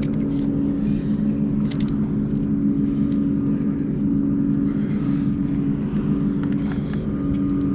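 Steady low engine drone, a motor running at an even, unchanging pitch, with a few light clicks over it.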